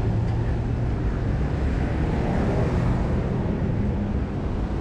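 Steady road traffic at a busy city intersection: vehicles running through in a continuous low hum, with no single event standing out.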